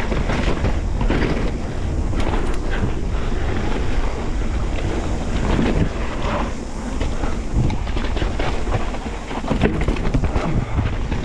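Wind rushing over an action camera's microphone as a mountain bike descends a dirt trail at speed, with tyre noise and frequent knocks and rattles from the bike over bumps.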